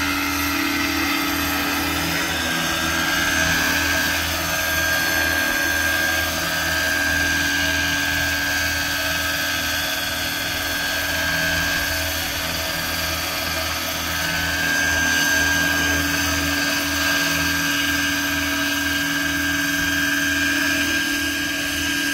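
Radio-controlled scale Bell 429 helicopter hovering low, its rotors and drive giving a steady whine with a pulsing low beat from the blades.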